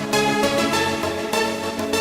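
Background music: an electronic pop song with a steady beat, playing without vocals.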